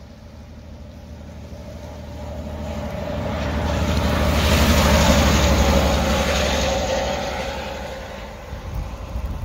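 DE15 diesel locomotive with a Russell snowplow approaching and passing, its diesel engine droning under a rush of snow being thrown aside. The sound swells to its loudest about five seconds in, then fades.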